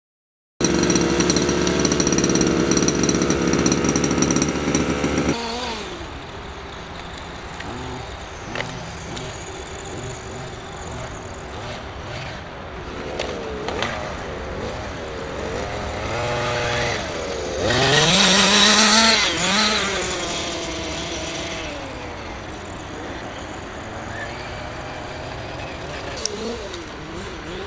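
Electric motor and gears of a Tamiya Desert Gator 1:10 RC buggy whining, the pitch rising and falling with the throttle. The loudest rising whine comes about two-thirds of the way through. Before that, a loud steady sound in the first few seconds cuts off suddenly about five seconds in.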